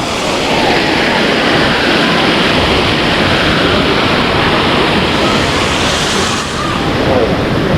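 Loud, steady rush of a waterfall's falling water.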